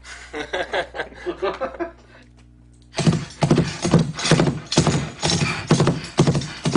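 Foley horse hoofbeats with the bridle track played back: a steady run of heavy clip-clop strikes, about three a second, starting about three seconds in. Before them come a couple of seconds of softer, voice-like sound.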